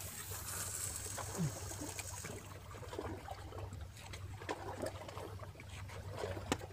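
Faint sea water lapping and trickling among breakwater rocks, over a steady low hum, with scattered small clicks throughout.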